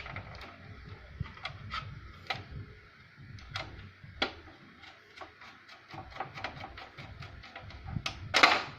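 A screw being driven by hand into a washing machine's top cover: a run of irregular small clicks and ticks as the screwdriver turns, with a louder scraping rattle near the end.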